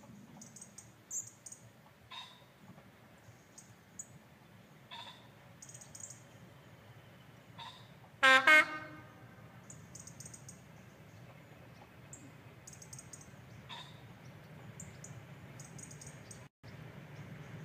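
Diesel-electric multiple unit sounding its horn as it approaches: two short blasts about a third of a second apart, a little past halfway. Under it, a faint low engine rumble grows slightly toward the end.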